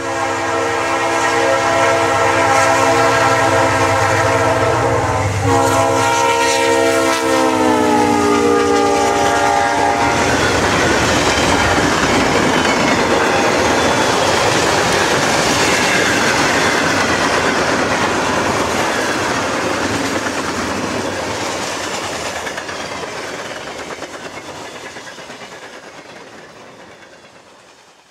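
A diesel locomotive's multi-chime air horn sounds for about ten seconds, its chord sliding down in pitch over the second half. Then comes a steady, noisy clatter of a passing train, fading out near the end.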